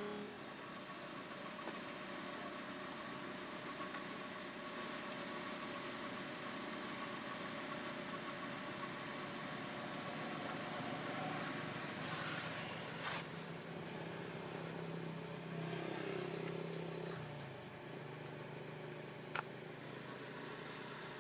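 An engine running steadily as a low hum, its pitch dropping slightly about three-quarters of the way through, with a single sharp click near the end.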